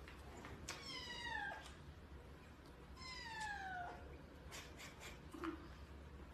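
Orange long-haired cat meowing twice, each meow just under a second long and sliding down in pitch.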